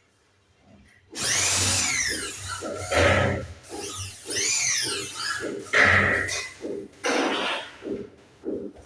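A power drill runs in a series of short bursts after about a second of near silence. Its pitch rises and falls with each burst as it speeds up and slows down.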